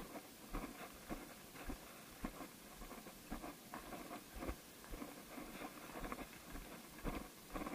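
Footsteps on a gritty concrete path, about two steps a second.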